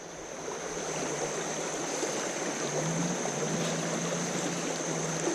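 Shallow rocky creek running over rocks in rapids, a steady wash of water noise.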